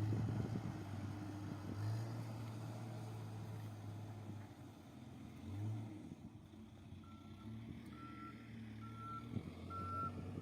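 A heavy machine's engine running, with a reversing alarm beeping at a steady pace, about three beeps every two seconds, starting about seven seconds in: the machine is backing up.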